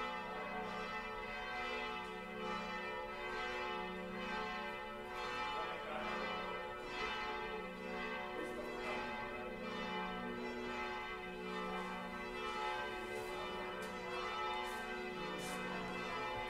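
Church bells pealing, several bells sounding together with strikes repeating about once a second.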